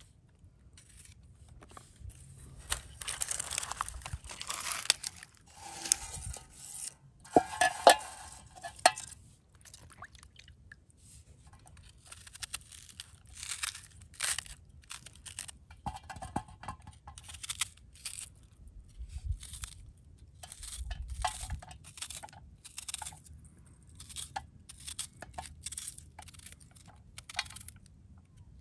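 Dry, papery red onion skins crackling and tearing as they are peeled off with a knife, followed from about halfway on by a knife slicing through a red onion held in the hand, in a steady run of short, crisp cuts.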